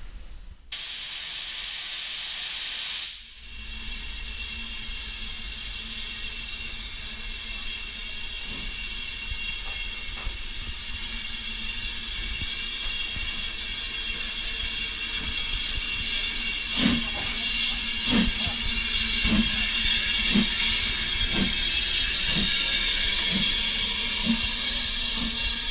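BR Standard Class 4 4-6-0 steam locomotive No. 75029 hissing steam steadily. In the last third, a run of about eight soft, regular beats roughly a second apart sounds under the hiss.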